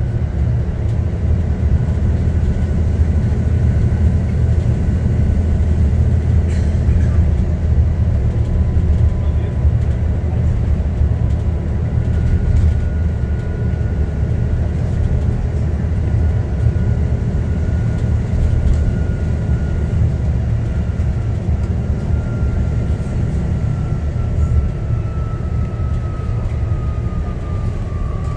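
Inside an Alexander Dennis Enviro400 MMC double-decker bus under way: a steady deep drone of engine and road noise. Over the second half a faint whine slowly falls in pitch.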